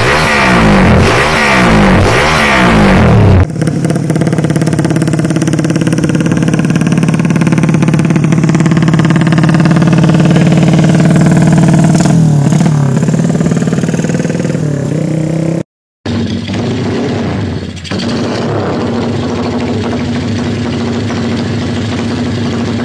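Motorcycle engines on loud aftermarket exhausts, in three clips. First an air-cooled single-cylinder with an open carburettor revved in quick rising and falling throttle blips. Then a steady fast idle with a few small revs, and after a brief dropout another bike idling.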